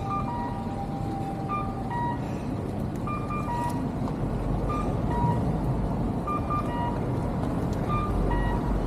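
Road traffic passing through a city intersection, a steady rumble of cars driving by that swells as vehicles go past, with faint short electronic beeps of a few different pitches recurring throughout.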